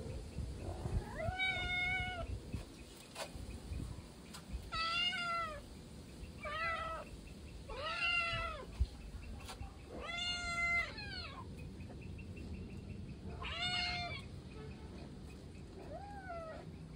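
Domestic cat meowing repeatedly: about seven separate meows, each rising and then falling in pitch, spaced one to three seconds apart. The last meow, near the end, is fainter.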